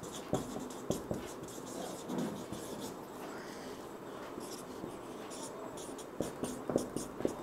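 Marker pen writing on a whiteboard: short scratchy strokes, with a quick run of light taps near the end as numbers are jotted down.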